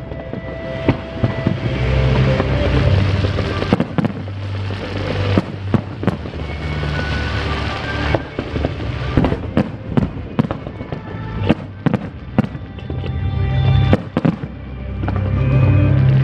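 Aerial fireworks bursting in quick succession: many sharp bangs and dense crackling, with music playing underneath.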